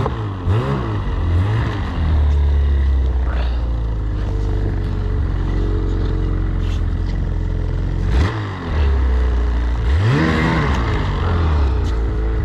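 Snowmobile engine idling steadily, revved up and back down in short blips: a couple near the start, then again about two-thirds of the way through.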